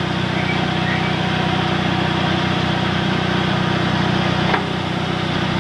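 A vehicle engine idling steadily, with a faint click about four and a half seconds in.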